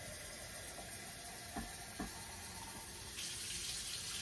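Kitchen faucet running water into a glass canning jar, with two small clinks about a second and a half in. The rush of the water gets a little louder and brighter about three seconds in.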